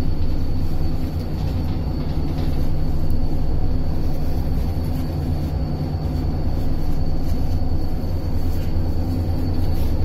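Steady low drone of ship's machinery, a stack of constant hum tones with a thin high whine above it, and a few faint light clicks from handling the hydraulic valve block.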